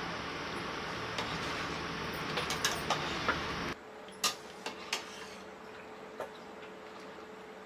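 Steel ladle stirring rice and dal in an open pressure cooker, scraping and clinking against the pot, over a steady hiss that stops abruptly about halfway through; a few sharp clinks follow.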